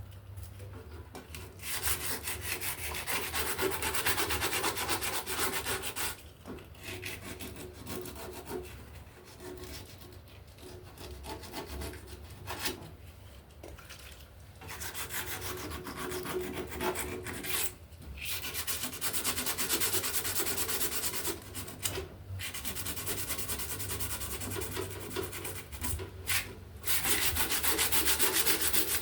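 Abrasive rubbing, as in sanding or scrubbing a part by hand, in stretches of several seconds with fine rapid strokes, broken by about five brief pauses.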